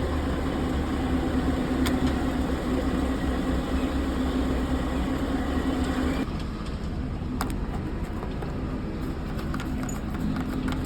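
Heavy machinery engine running steadily with a constant drone. About six seconds in, the sound turns duller and a little quieter, and there are a couple of faint clicks.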